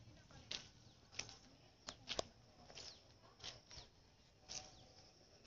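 Near silence with a few faint, irregular clicks and crackles, roughly one a second.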